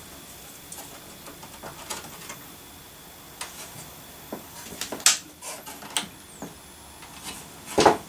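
Computer power-supply cables and an IDE ribbon cable being handled and plugged in: light rustling and scattered small clicks of plastic connectors, with a sharper click about five seconds in and a louder knock near the end.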